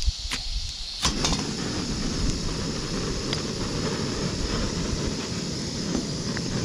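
MSR PocketRocket canister stove being lit with a lighter: a couple of sharp clicks, then about a second in the gas burner catches and runs with a steady rushing hiss.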